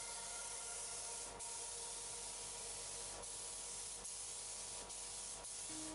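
Gravity-feed spray gun hissing steadily as it sprays base-coat paint onto a car body, with a few faint ticks along the way.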